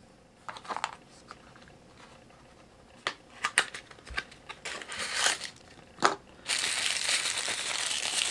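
Hands handling a thin white tissue or wrapper: scattered light clicks and rustles at first, then from about six and a half seconds in a continuous, louder crinkling.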